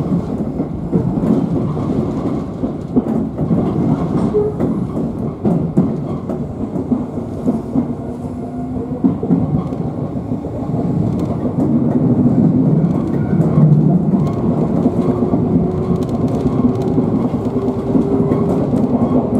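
Shizuoka Railway 1000 series electric train running on the line, heard from inside the car: a steady rumble of running noise with scattered clicks and knocks from the wheels and track. A faint steady tone comes in around the middle.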